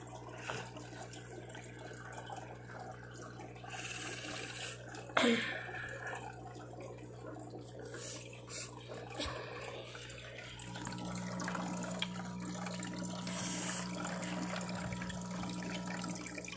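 Aquarium equipment running: water trickling and splashing under a steady low pump hum, the hum growing stronger about eleven seconds in. A brief sharp sound stands out about five seconds in.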